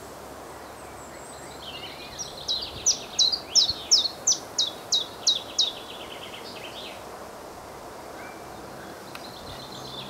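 Common chiffchaff singing its song: a run of about ten sharp, falling notes at about three a second in the middle, over steady wind noise.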